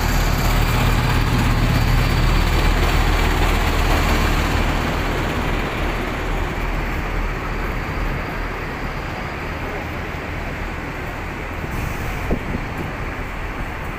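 Large tour coach's diesel engine running close by: a loud, steady low hum with hiss that begins suddenly. It eases off after about four seconds into a steady, lower street rumble.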